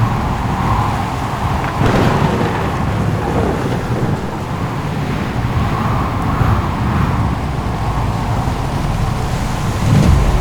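Heavy rumbling noise of a storm at sea, wind and crashing waves, with a louder crash about two seconds in.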